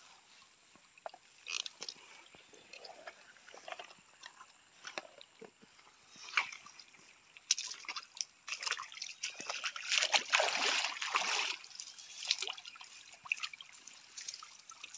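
Shallow rocky stream trickling, mixed with scattered rustles and clicks, with a louder stretch of rushing noise a little past halfway.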